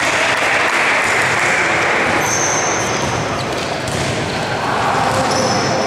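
Basketball game in a sports hall: sneakers squeaking briefly on the court floor a couple of times, a ball bouncing, and a wash of players' and spectators' voices.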